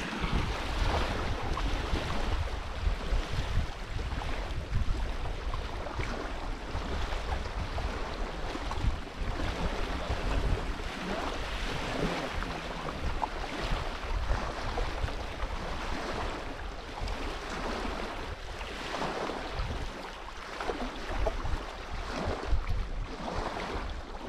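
Wind on the microphone: a steady rushing noise with a low rumble that swells and eases.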